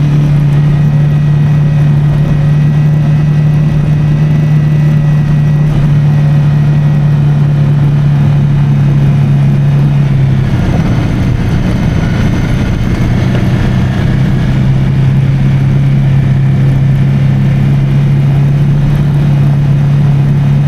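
Motorcycle engine running steadily at cruising speed under wind and road noise. About halfway through, its steady note breaks up for a couple of seconds, then settles back to the same pitch.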